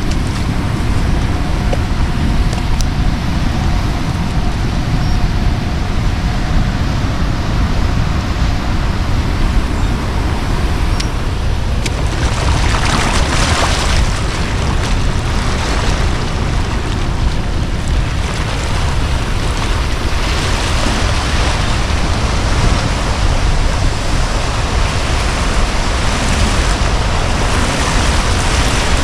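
Floodwater of the Au Sable River rushing at Mio Dam: a loud, steady wash of water noise, with wind rumbling on the microphone.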